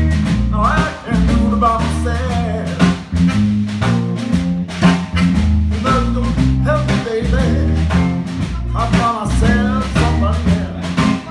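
Live band playing: upright double bass, electric guitar and drums, with a singer at the microphone.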